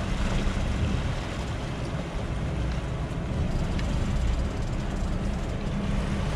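Boat engine running steadily with a low hum, with propeller wash churning the water astern.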